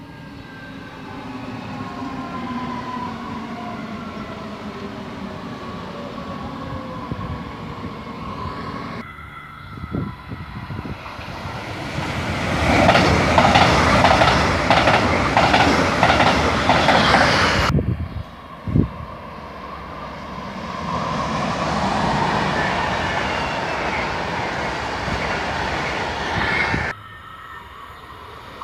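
Electric trains at a station platform. First a red S-Bahn electric multiple unit pulls in, its traction motors whining and falling in pitch as it brakes. After a cut, a double-deck regional train runs past with a loud clickety-clack of its wheels, about two knocks a second. Then a steady rush of a train passing.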